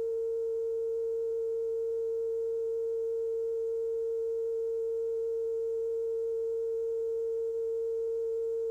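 Television station's test tone after signoff: one steady, unbroken mid-pitched tone with faint higher overtones, holding the same pitch and level throughout.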